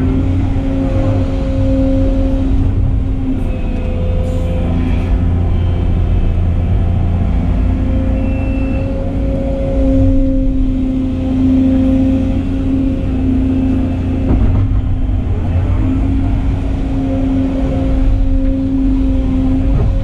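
Volvo excavator's diesel engine and hydraulics running under load, heard from inside the cab as a steady low rumble with a hum that swells and eases as the boom and bucket are worked.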